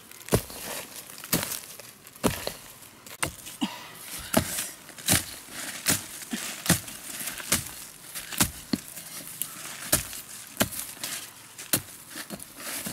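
Short-handled hoe striking into loose soil, about one chop a second, with earth and dry leaves rustling between the strokes.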